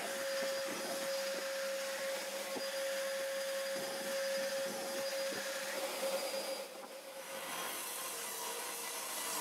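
A small electric motor running steadily with a constant whine and a few light knocks. It dips about seven seconds in and then carries on as a steadier hiss.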